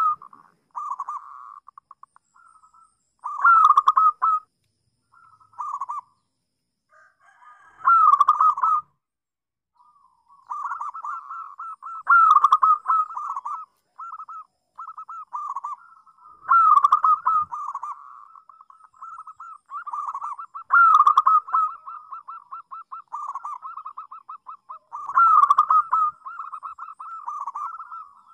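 Local zebra dove (perkutut) cooing over and over: staccato, trilled coos at a steady pitch, a loud phrase about every four seconds with quieter rattling notes between.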